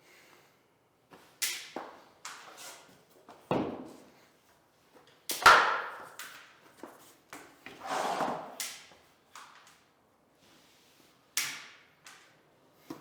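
Vinyl click flooring planks being handled and knocked into place: irregular knocks and thuds, the loudest about five seconds in, with a longer scrape around eight seconds in.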